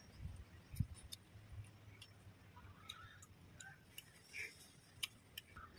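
Faint, scattered small clicks and smacks of a person chewing and eating fish and rice by hand, over a low steady hum.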